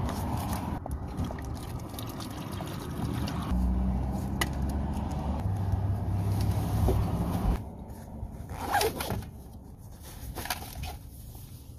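Water sloshing in a plastic hydration bladder as it is handled and stuffed into a backpack, with rustling and clicks from the pack. A low steady hum from about three and a half to seven and a half seconds in.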